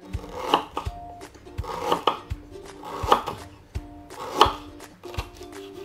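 Kitchen knife slicing a lemongrass stalk into rings on a wooden cutting board: a cut about once a second, each one ending in a knock of the blade on the board, with lighter taps between.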